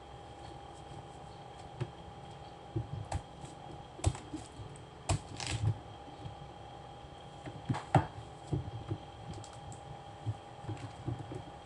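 Kitchen knife cutting a watermelon into wedges: irregular crunching knocks as the blade goes through the rind, the strongest about four, five and eight seconds in.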